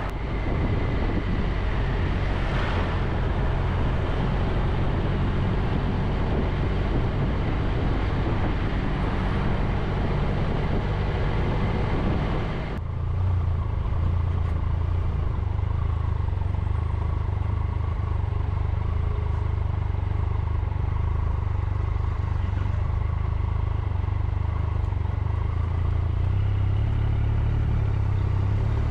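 Triumph Tiger 1200 three-cylinder motorcycle on the move with wind and road rush, until about halfway through the rushing noise drops away suddenly and the engine's steady low hum takes over as the bike rolls slowly and waits at a crossing.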